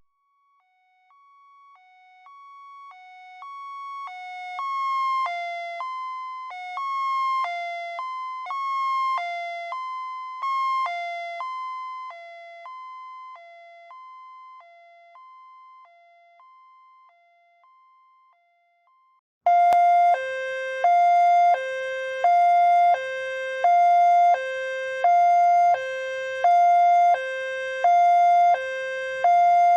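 Ambulance two-tone hi-lo siren going by: it swells, its pitch drops slightly, and it fades away. About two-thirds of the way through, a louder two-tone siren starts suddenly, switching evenly between two lower tones about once a second, with a faint low rumble beneath it.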